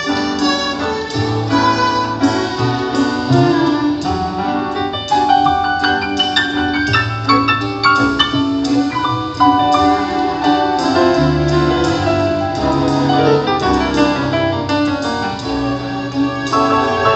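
Grand piano playing a live instrumental passage, a steady run of notes over sustained bass notes.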